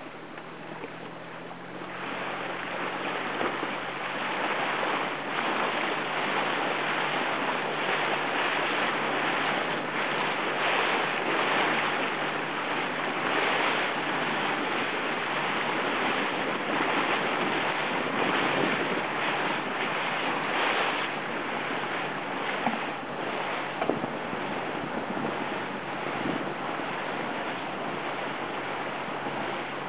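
Wind buffeting the microphone over water rushing and splashing around a boat on open water, with a few sharp knocks in the last third.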